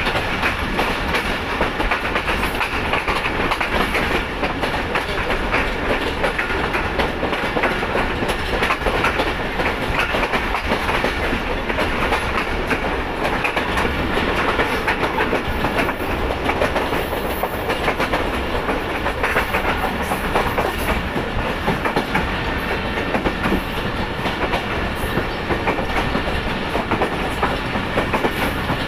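Passenger train coaches running on the track, heard from aboard: the wheels clatter over rail joints in a steady clickety-clack over a continuous rumble.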